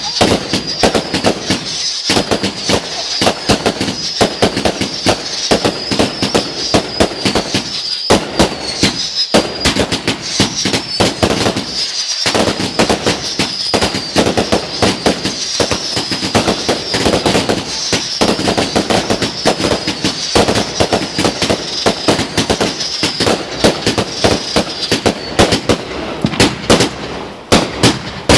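A firework barrage fires shot after shot in quick, uneven succession, a dense run of bangs and cracks. A high wavering whistle runs over the bangs until a couple of seconds before the end.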